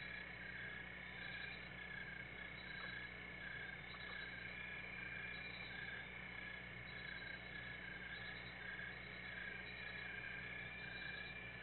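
Steady chorus of night-calling animals, a high-pitched band with a slight pulsing, over a low steady hum. No boom from the explosion is heard.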